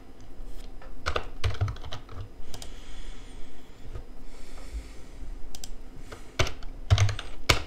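Typing on a computer keyboard: irregular, uneven keystroke clicks with pauses between short runs.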